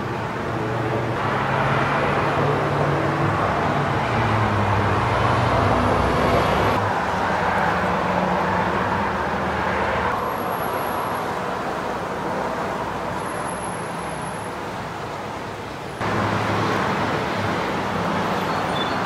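Steady road traffic noise from cars and trucks passing on a busy road, with low engine hums rising and falling as vehicles go by. The sound changes abruptly a few times, with a jump up in level near the end.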